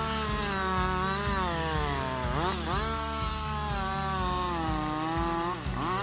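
Husqvarna 560 XP two-stroke chainsaw running at high revs while cutting through a trunk, its engine pitch sagging under load and recovering, with two sharp dips: one about two and a half seconds in and one near the end.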